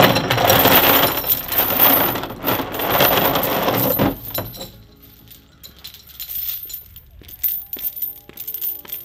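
Heavy steel chain rattling and clanking as it is dragged and gathered up off a plastic truck bed liner. After about four seconds it quietens to lighter, scattered jingling of the links.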